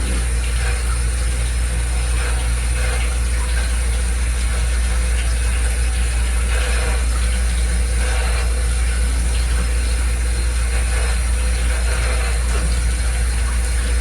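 A steady low machine hum, unchanging throughout, with faint scattered small sounds over it.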